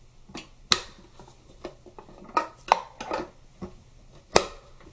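Hard plastic parts of a salad maker clicking and knocking as a plate is fitted inside the bowl: about half a dozen sharp clicks, the loudest near the end.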